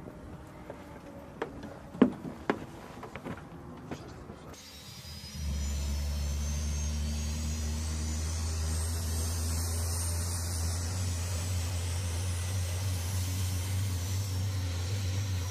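A few sharp knocks and clunks as crew climb the metal boarding steps into the aircraft. From about five seconds in, the CASA CN-235's two General Electric CT7 turboprop engines run steadily on the ground, a low drone with a faint high whine above it.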